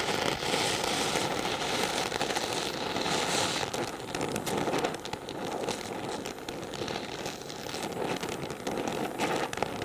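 Gas brazing torch flame hissing steadily on cast iron while bronze brazing rod is melted into the joint, with fine crackling from the burning flux.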